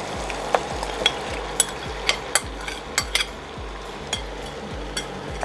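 Chicken being stirred into a thick masala in a pan on very low heat: a utensil scrapes and knocks against the pan in irregular clicks over a soft, steady sizzle.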